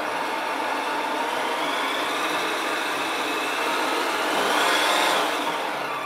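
HG P408 RC Humvee running on its stand: a steady engine-like drone with a whine that climbs slowly in pitch, peaks and grows loudest about five seconds in, then falls away.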